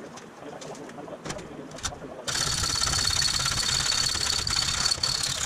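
A motor-driven shop tool switches on abruptly about two seconds in, runs steadily with a high whine for about three seconds, then stops; before it, light clicks and handling noises.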